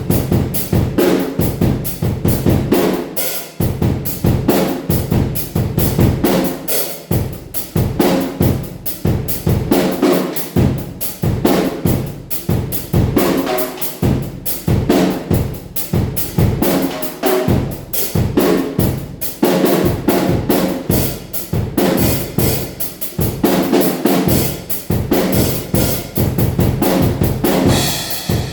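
Drum kit played in a steady, fast groove: bass drum, snare and cymbals, the pattern repeating about every three and a half seconds.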